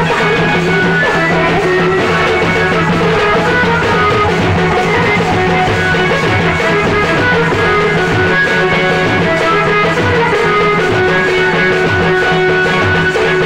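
Live Santali folk music: barrel drums beaten with sticks keep a steady rhythm under a continuous melody line. It is loud throughout, with no pause.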